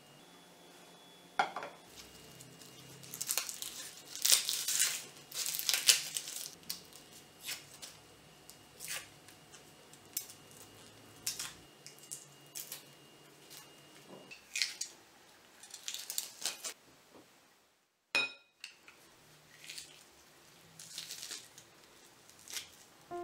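Kitchen food-prep sounds: a knife clicking and scraping on a wooden cutting board as garlic cloves are peeled and cut, in irregular strokes. Near the end, a metal garlic press clacks as garlic is squeezed through it.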